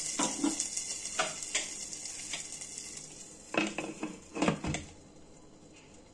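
A sizzling hiss fades over about three seconds as a smoking foil cup of ghee sits on the curry in the pot, with a few light clinks. Then come several metal clanks, about a second apart at most, as the Prestige Deluxe pressure cooker's lid is put on and closed over the aluminium pot.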